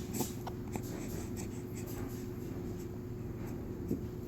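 A baby a few weeks old hiccuping softly, a couple of short hics about a quarter second and about four seconds in, over soft rustling and a steady low hum.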